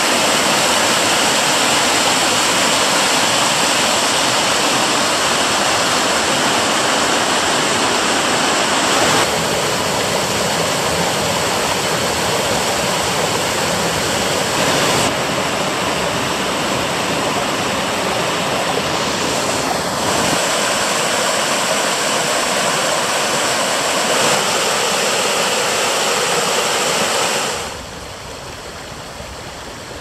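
River water rushing, a loud, steady wash that changes abruptly in tone a few times and drops quieter near the end.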